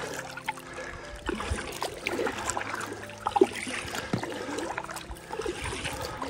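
Water trickling and dripping around a kayak on a lake, with a few small knocks and light splashes.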